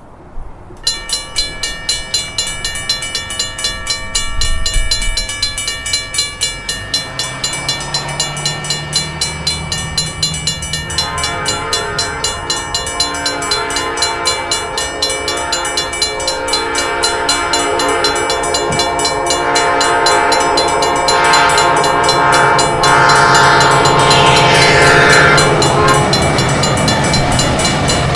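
Railroad crossing bells ringing in a fast, even rhythm. From about a third of the way in, a Nathan P5 five-chime air horn on an EMD GP59 locomotive sounds over them, with the low rumble of a passing train, growing louder toward the end.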